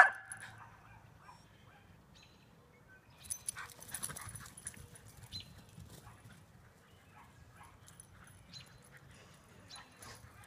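A dog barks once, loud and sharp, right at the start, then faint scattered clicks and rustles for the rest.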